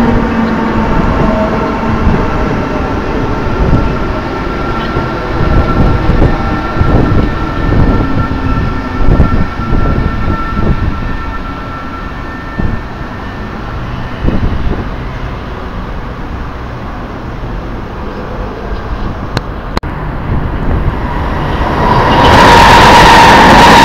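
NS Sprinter (SGM) electric trainset running past on the rails, its motor whine falling in pitch at the start and its wheels knocking irregularly over the rail joints, then fading. Near the end a much louder, steady rush with a humming tone sets in suddenly as a faster intercity train comes through.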